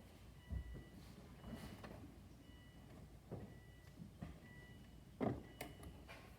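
Muffled knocks and bumps of someone getting into a car, with a faint electronic warning chime repeating about once a second. The engine is not yet cranking.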